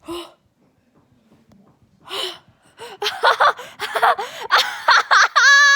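A person laughing hard in a high-pitched voice: a sharp breath about two seconds in, then a rapid string of short, gasping laughs.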